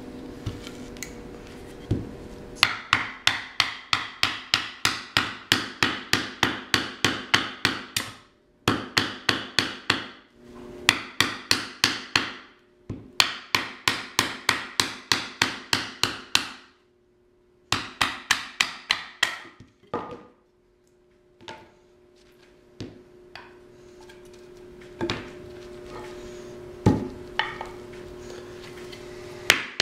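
A wooden baton knocking on the spine of a full-tang O1 carbon-steel bushcraft knife (Enzo Trapper), driving the blade down through wood to split it. The knocks come in fast runs of about three a second with short pauses between, and after about twenty seconds only a few single knocks.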